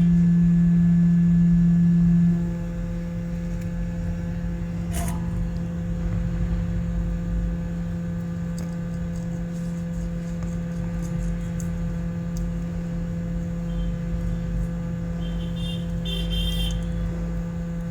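Steady hum of a hot air rework station's blower running, louder for the first two seconds or so. A few faint clicks and ticks from the work on the board come through it.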